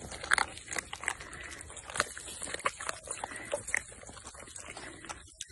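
A litter of puppies eating dry kibble from a shared metal pan: a busy, irregular run of crunches, chomps and small clicks.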